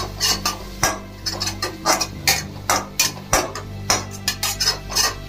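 Flat metal spatula scraping and clinking against a metal kadhai while stirring a thick spiced onion-tomato masala, at about three strokes a second.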